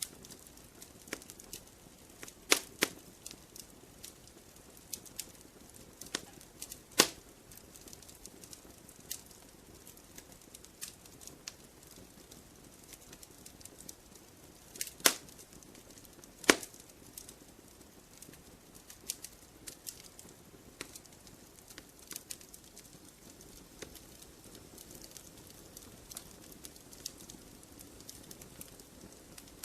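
Campfire crackling: a steady low hiss of burning wood with scattered small snaps and a few loud sharp pops, the loudest about 2.5, 7, 15 and 16.5 seconds in.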